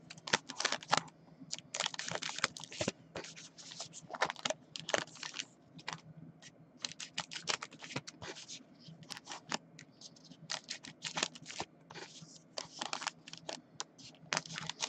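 Foil-wrapped trading card packs crinkling and clicking as they are handled and stacked on a tabletop, a quick, irregular run of crackles and light taps.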